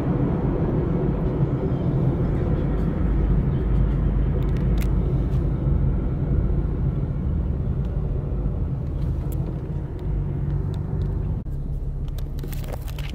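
Car engine and road noise heard from inside the cabin while driving in slow convoy traffic: a steady low rumble, with a few clicks near the end.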